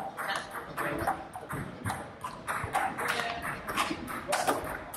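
Table tennis balls clicking sharply off bats and table tops in rallies, as a string of irregular, quick clicks from this table and the neighbouring tables.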